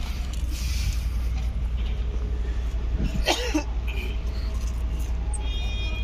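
A single cough-like vocal burst about halfway through, over a steady low rumble.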